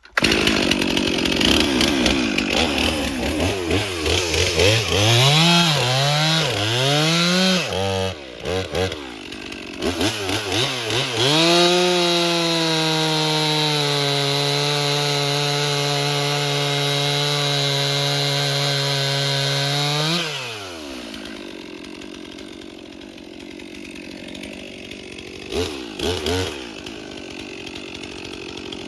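Stihl MS 362 C two-stroke chainsaw revved in repeated blips, then held at full throttle for about eight seconds, its pitch sagging a little under the load of cutting through a log. It drops back to idle about twenty seconds in and is blipped again briefly near the end.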